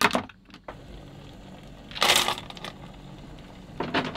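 Cockle shells clattering: one handful is scooped up at the start, and more are tipped into a steel steamer basket about two seconds in and again near the end. Between the clatters there is a steady hiss from the pot of boiling water beneath.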